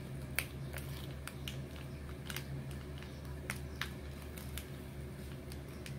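Sticky slime clicking and popping as a foam squishy cake layered with slime is squeezed in the hand: a scattering of small sharp clicks over a steady low hum.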